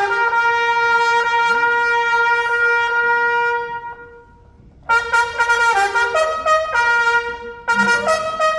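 Brass band led by trumpets playing slowly: a long held note fades out about four seconds in, followed by a short near-silent pause, then the trumpets come back in with moving notes.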